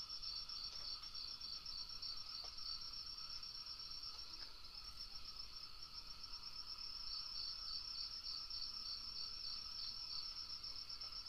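Crickets chirping steadily at night in rapid pulsing trills, with a second, slightly lower cricket joining in runs of pulses near the start and again past the middle. A few faint ticks over the top.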